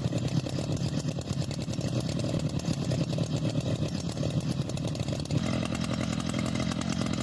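STIHL chainsaw engine running steadily at high revs while cutting, and its sound grows fuller and brighter about five seconds in.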